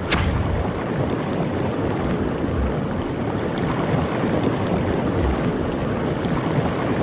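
A water balloon bursts with a sharp pop right at the start, followed by a steady rush of spraying, splashing water.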